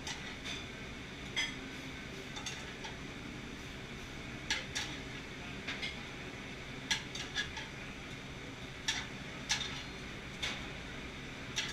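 Metal tongs clinking and tapping against a sauté pan in irregular sharp strikes, about a dozen, over a steady background hum.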